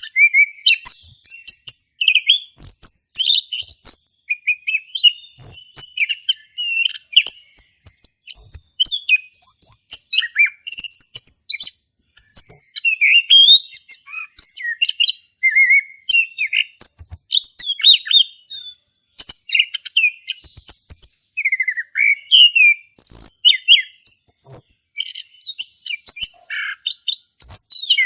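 Male chestnut-capped thrush (anis kembang) in full song: a rapid, unbroken run of varied whistles, chips and trills, high-pitched and without pauses.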